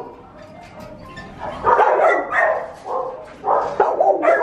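Dogs barking in shelter kennels, quieter for about the first second and a half, then loud, overlapping barking and yelping for the rest.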